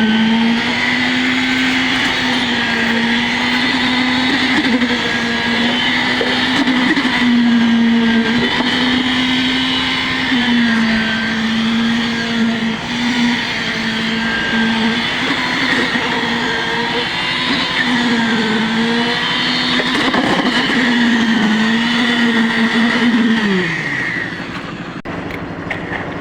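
A motor running steadily at a high, even pitch, sagging briefly several times as if loaded, then switched off near the end and winding down with a falling pitch.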